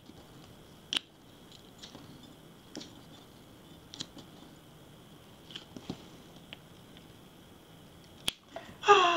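Fingertips picking at and peeling a paper sticker off its backing sheet: a few sharp, scattered clicks and small crackles over a faint steady high hum. A single loud click comes near the end, and right after it a voice-like sound starts.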